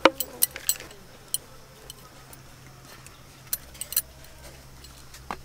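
Bangles clinking in scattered light clicks as hands roll dough into logs on a wooden board, several clicks in the first second and a few single ones later.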